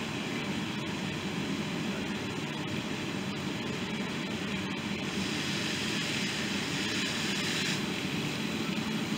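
Fire truck engine and pump running steadily while a high master stream of water sprays: a constant drone under a hiss of water, the hiss turning louder and sharper from about five seconds in to nearly eight.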